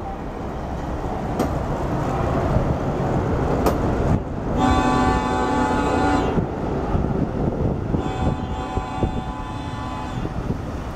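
Hi-rail truck's multi-tone horn sounding two blasts as it comes along the rails: a loud blast of under two seconds near the middle, then a quieter one of about two seconds soon after, over a steady low rumble.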